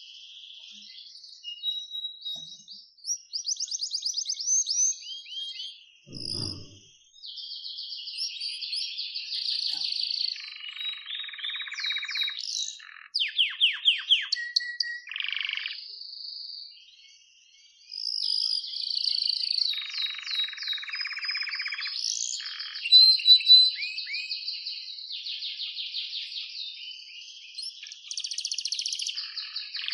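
Domestic canary singing a long song of rapid trills, rolling buzzy passages and quick chirps, with a break of about a second a little past the middle.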